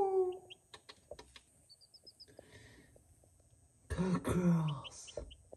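Baby chicks in a brooder giving a quick run of short, high peeps about two seconds in and a few more near the end. A person's throat-clearing or cough-like vocal sound, the loudest sound here, comes about four seconds in.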